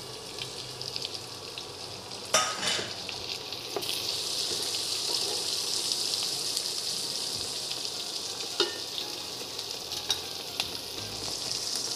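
Chopped onion, green chilli and capsicum sizzling in hot oil in a kadhai and being stirred with a wooden spatula. There is a brief clatter about two seconds in, the sizzle grows louder from about four seconds, and the spatula knocks against the pan a few times.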